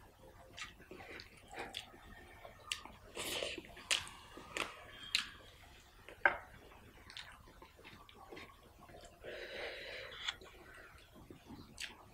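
Close-miked eating by hand: fingers squishing rice and curry on a plate, then chewing with wet mouth clicks and smacks. Many short sharp clicks, with a couple of longer wet, squelchy stretches.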